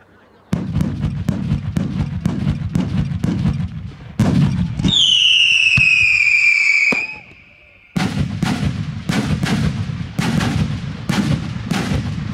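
Fireworks firing. A rapid string of launch bangs, about four a second, gives way to a loud whistle that falls in pitch for about two seconds and cuts off. After a short pause the quick bangs start again.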